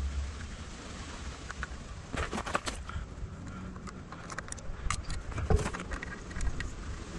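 Light clicks and rattles of hands handling a cable connector at the underside of an e-bike's down tube, with a cluster of clicks a couple of seconds in and one louder knock past the middle, over a steady low rumble.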